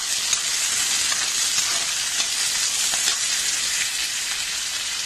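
Chopped onion and tomato frying in oil in a kadai: a steady sizzle, with a few light scrapes of a metal spoon stirring them.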